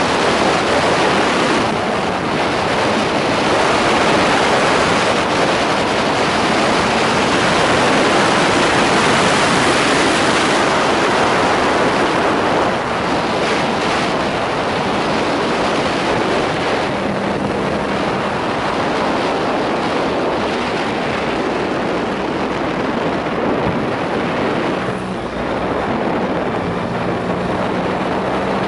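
Wind rushing over the microphone of a camera on a motorcycle riding at road speed, a loud steady rush. Under it the motorcycle's engine hums faintly, its steady note coming through more clearly about two-thirds of the way in and again near the end.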